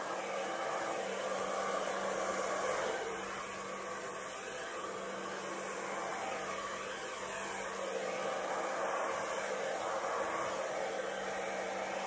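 Hair dryer running steadily, blowing air onto wet acrylic paint on a canvas to spread it in a Dutch pour. The rush of air sits over a steady low hum, swelling slightly in loudness as the dryer is moved.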